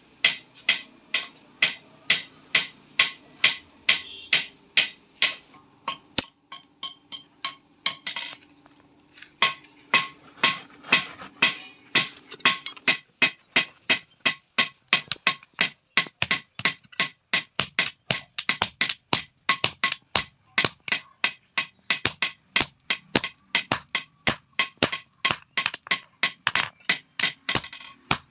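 Hand hammer striking steel on an anvil while forging, in a steady run of ringing blows. The blows stop for a few seconds about a quarter of the way in, then resume at a faster pace.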